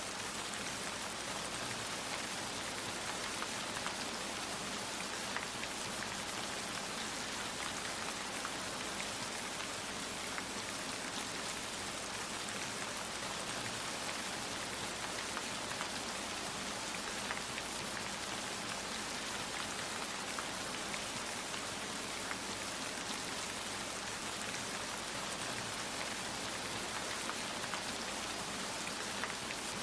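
Steady rain: an even hiss with scattered drop ticks and no thunder.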